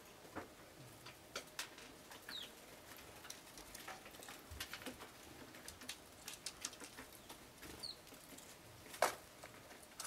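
Eurasian tree sparrows giving a few short chirps, with scattered sharp ticks and clicks throughout and one louder click about nine seconds in.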